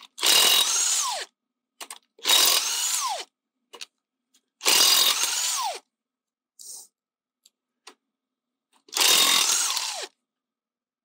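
Cordless impact wrench with a 19 mm socket undoing a van's wheel nuts: four bursts of about a second each, each ending in a whine that falls in pitch as the motor winds down.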